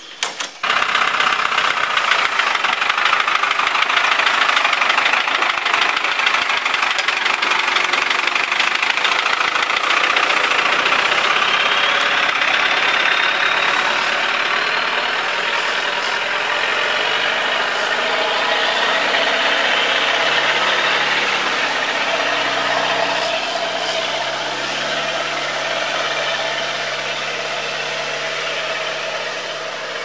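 Off-road 4x4 engines running and idling, under a loud steady hiss-like noise that starts suddenly about half a second in. A deeper engine note comes up in the second half.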